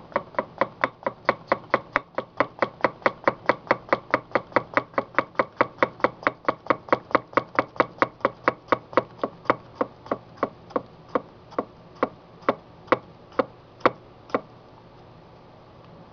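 Shun Premier 8-inch chef's knife slicing a tomato, the blade tapping the wooden cutting board at each stroke in a steady rhythm of about four cuts a second. The cuts slow and spread out after about ten seconds and stop a little before the end.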